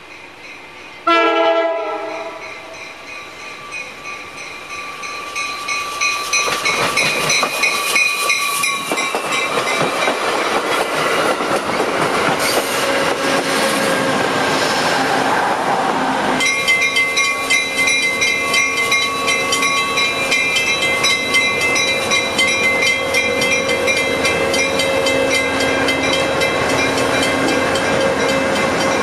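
Amtrak passenger train giving a short horn blast about a second in, then approaching and rolling past, its wheels clattering rhythmically over the rail joints as the cars go by.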